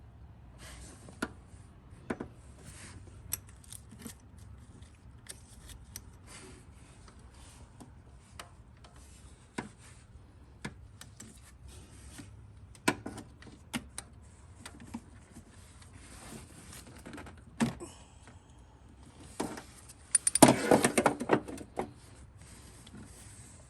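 Hand tools working on an engine: scattered metallic clicks and clinks of a socket and bolts, with a denser, louder rattle about twenty seconds in.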